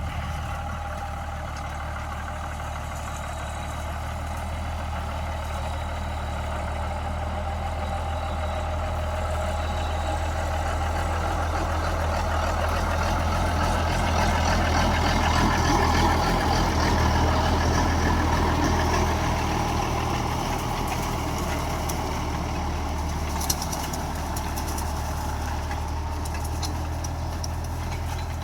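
Tractor diesel engine running steadily, louder around the middle and then easing back, with a single sharp click about 23 seconds in.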